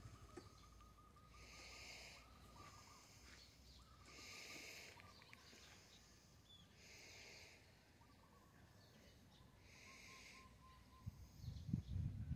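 Faint outdoor animal calls: a short buzzy call repeats about every two and a half seconds over quiet background, with a faint steady whistle-like tone in the first few seconds. Low thumps and rustles come in near the end.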